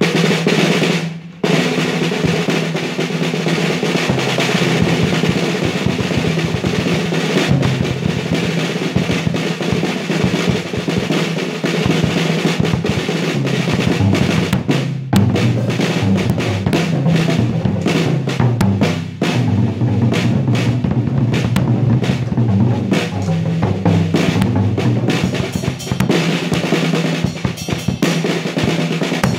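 Drum kit played hard at close range, with clear-headed rack toms and an acrylic-shelled drum: a dense, continuous run of snare, tom and bass drum hits and rolls that starts suddenly and breaks off briefly about a second in.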